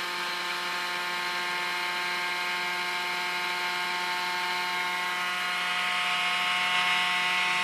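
Brushless spindle motor from a Lite-On DVD writer spinning a dual-layer DVD at about 12,000 RPM under a sensorless controller: a steady whine of several tones, getting slightly louder in the last couple of seconds.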